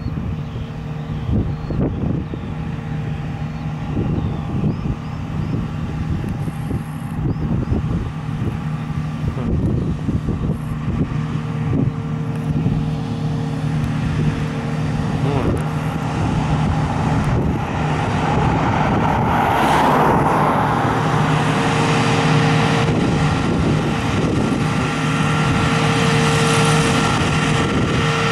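John Deere 9660i combine harvester and a John Deere tractor running together while the combine's unloading auger pours barley into the tractor's trailer: a steady diesel engine drone with machinery rumble. The sound grows louder in the second half as the tractor and trailer pull closer.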